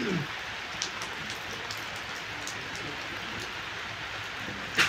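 Steady rain falling, an even hiss, with a few faint clicks and one sharp hit just before the end.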